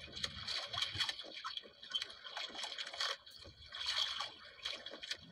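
Sea water lapping and sloshing against the hull of a small outrigger boat, with irregular small splashes and drips.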